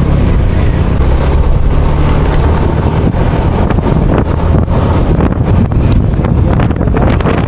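Wind buffeting the microphone on a moving motorcycle, with the engine running steadily underneath.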